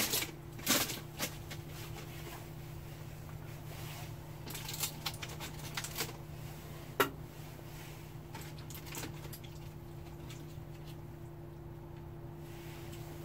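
Rustling and scattered light clicks of aluminium foil being handled as a foil-wrapped pork butt is unwrapped on a kettle grill, over a steady low hum; a sharper click about seven seconds in.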